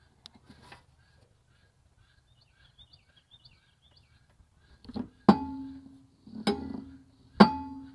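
Sharp metallic clanks from metal parts being struck while the mower deck is worked on, three loud ones starting about five seconds in. Each clank rings on at the same steady pitch for about half a second.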